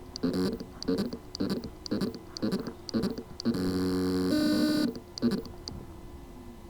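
Hard drive spindle motor failing to come up to speed because of loose motor contacts on the PCB. It gives short buzzing pulses about twice a second, then a longer steady buzz about three and a half seconds in that stops near five seconds, then a faint hum.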